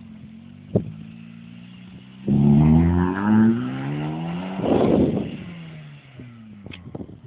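Vauxhall Astra's engine running steadily, then revved hard about two seconds in as the car drifts, its pitch rising and falling. A loud rushing noise follows halfway through, then the engine note falls back to a steady run near the end.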